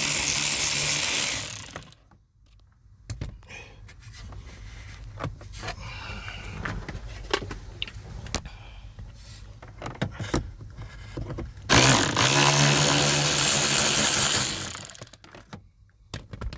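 A handheld power tool's motor runs in two bursts of about three seconds each, one at the start and one about twelve seconds in, most likely driving out the heater core cover bolts. Between the bursts come quieter clicks and scrapes of tool and metal handling.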